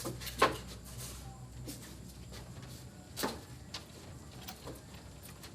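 Two short thuds about three seconds apart, the first the louder, over a low steady hum.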